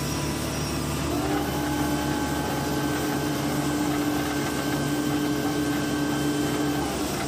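Heavy diesel engine running, heard from inside an excavator cab. About a second in it revs up to a higher, steady hum, which holds until it drops back just before the end.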